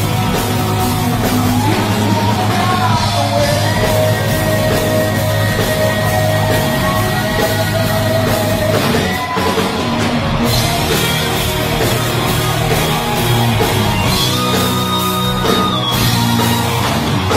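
Heavy metal band playing live: distorted electric guitars with long held and bent lead notes over bass and drums, with a singer's voice on top.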